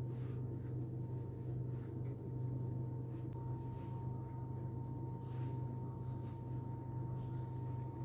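Steady low hum of a running motor or appliance, with faint light clicks. A thin high tone joins in about three seconds in and holds steady.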